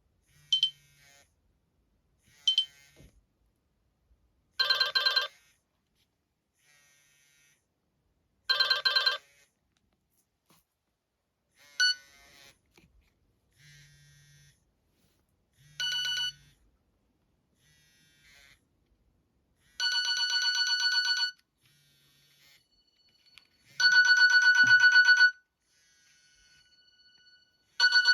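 Nokia E65 mobile phone ringtone playing through the phone's loudspeaker: repeated bursts of rapidly pulsed electronic ringing, from short blips to about a second and a half long, with quiet gaps of a few seconds between them.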